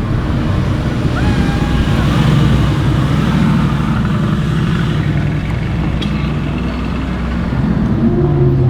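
Audi RS7 C8's twin-turbo V8 running through a loud custom exhaust at fairly steady, low revs, the engine note swelling only a little.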